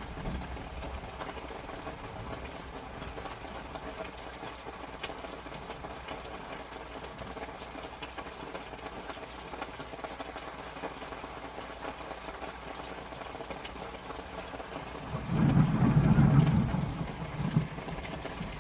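Steady rain heard from indoors through a window, falling onto tarps just outside, with faint scattered drop ticks. About fifteen seconds in, a brief louder low rumble rises over the rain for a couple of seconds.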